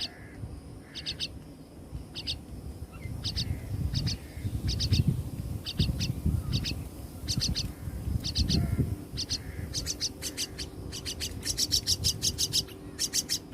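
Common myna chicks calling: short, high chirps in small groups of two to four, speeding into a quick run of chirps near the end. Low rumbling noise comes and goes in the middle.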